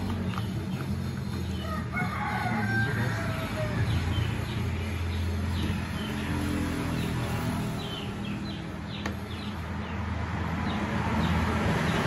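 A rooster crowing about two seconds in, then small birds chirping in short repeated notes, over a low steady hum.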